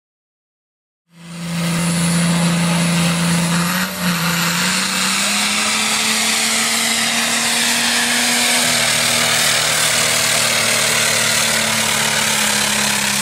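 About a second of silence, then a pulling tractor's diesel engine running hard under full load as it drags a weight sled down the track. Its pitch holds steady, rising slightly a few seconds in.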